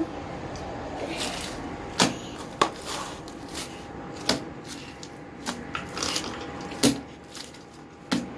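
Slime being kneaded and squished by hand, with irregular sharp pops and clicks.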